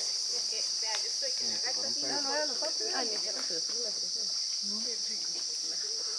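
Steady high-pitched drone of a rainforest insect chorus, with faint voices in the background during the first few seconds.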